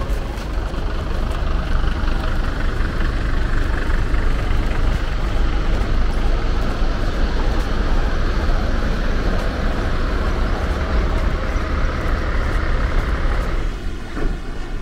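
Parked diesel coaches' engines running close by, a steady rumble with a faint steady tone above it; about 14 seconds in the higher hiss drops away and the rumble softens.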